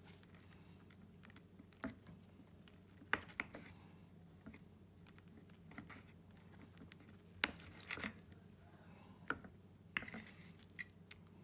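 Metal fork clinking and scraping against a plate while cutting through a soft burrito, in scattered sharp clicks and short scrapes, over a faint steady low hum.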